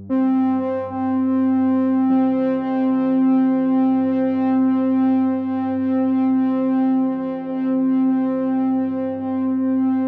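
Background music: sustained synthesizer chords of steady held tones, moving to a new chord about two seconds in.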